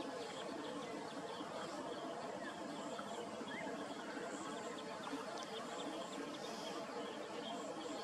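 Steady outdoor background ambience: indistinct distant voices, with a few faint short bird chirps and a thin insect buzz.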